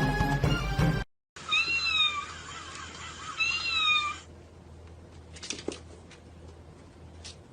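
Music for about the first second, cut off abruptly, then a domestic cat meowing twice, two drawn-out meows that bend in pitch, followed by a few faint taps.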